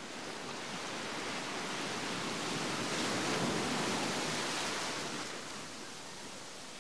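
Surf washing onto a beach: a steady rushing noise that swells over the first three seconds or so and then dies back.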